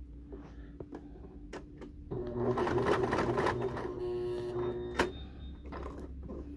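Domestic electric sewing machine stitching through thick coiled cotton rope, starting about two seconds in and running for about three seconds, then stopping with a sharp click about five seconds in. A few faint clicks of the rope being handled come before it.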